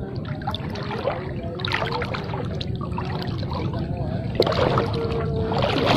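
Shallow swamp water sloshing and splashing irregularly as someone wades through it.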